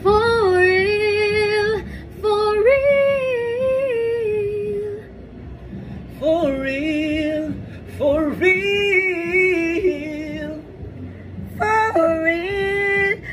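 A woman singing long, wavering held notes in about five phrases, each a second or two long, with short breaks between them.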